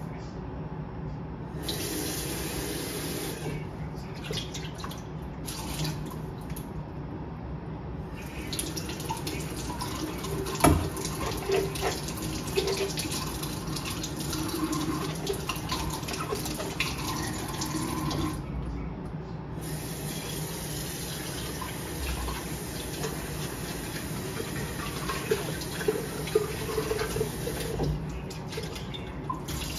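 Steady running water, with one sharp knock about ten seconds in.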